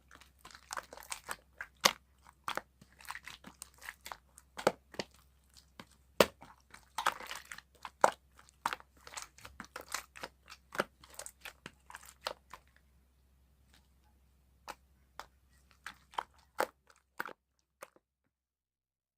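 Irregular crunching and clicking sounds, dense at first, then thinning out and stopping about eighteen seconds in.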